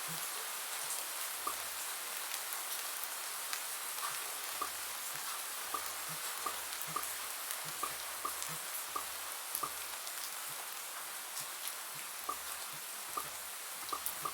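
Steady rain hiss with short bubble-pop sound effects laid over it, popping at irregular intervals about once a second.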